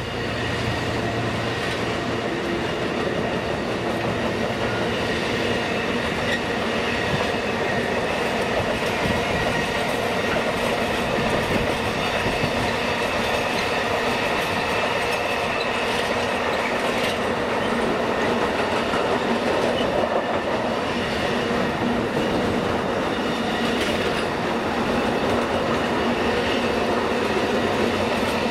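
Freight train of autoballaster hopper wagons rolling past, a steady rumble of steel wheels on rail with a thin high ringing over it.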